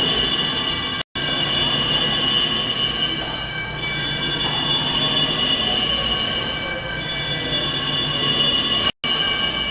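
Electric fire alarm bell ringing continuously, a loud, steady metallic ring, broken twice by split-second dropouts. It is sounding the slower alert signal of the building's alarm, which staff say only calls for evacuation if it starts ringing faster.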